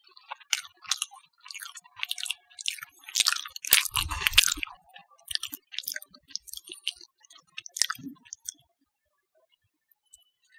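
Close-up eating sounds from a rice meal of dal and omelet eaten by hand. It is an irregular run of sharp clicks, densest and loudest about four seconds in, and it stops near the end.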